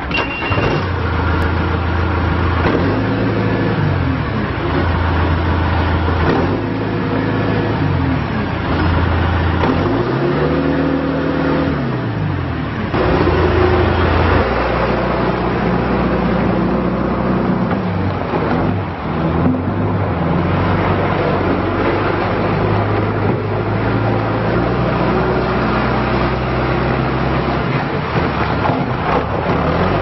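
John Deere 310SE backhoe loader's four-cylinder diesel engine running, revving up and down several times in the first dozen seconds, then running at a steadier pitch as the machine moves about.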